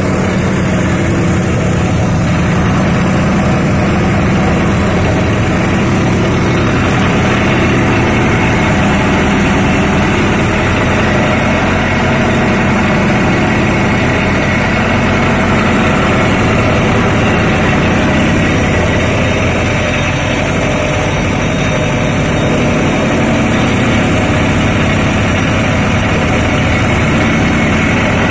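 Engine-driven paddy straw chopper running steadily under load: its own engine and the cutter and blower working as straw is fed in and chopped straw is blown out of the spout.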